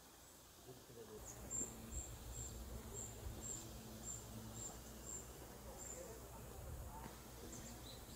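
Faint high-pitched chirps from a small animal, repeated about twice a second for several seconds, over a low outdoor rumble.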